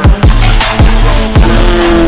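Electronic dance music with a deep, falling kick drum about every half second, crisp percussion strokes and held synth notes.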